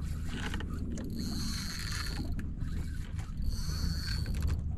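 Fishing reel drag singing in two bursts of about a second each as a hooked fish pulls line off, over the steady low hum of the boat's engine.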